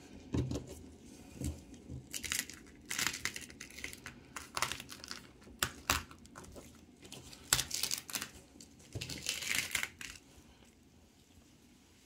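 Irregular crinkling and rustling handling noises as a painted canvas is spun by hand on a turntable, dying down near the end.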